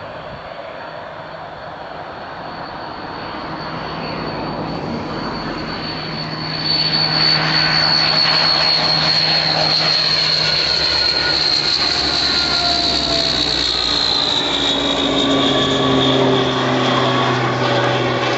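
Rolls-Royce Dart turboprop engines of Hawker Siddeley Andover C1 aircraft in a low flypast: a high whine over the propeller drone. It grows louder until about seven seconds in and stays loud, then the whine and engine tones drop in pitch as the aircraft passes.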